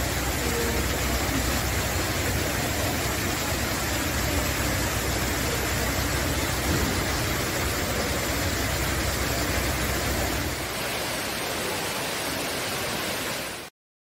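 Steady rushing of water falling down a tall indoor waterfall wall into a pool. It turns a little softer for the last few seconds, then cuts off suddenly.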